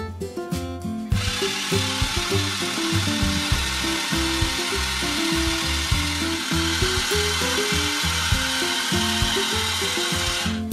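Blender running: a steady whirring hiss that starts about a second in and cuts off just before the end, over guitar background music.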